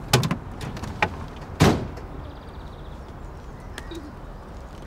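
Taxi doors being opened and shut: a few clicks and clunks, the loudest a door shutting about a second and a half in, over a low steady engine rumble.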